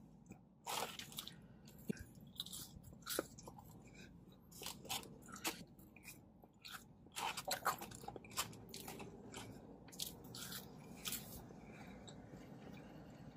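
Close-up chewing and mouth sounds of a person eating French fries: irregular wet smacks and soft crunches, busiest about seven seconds in.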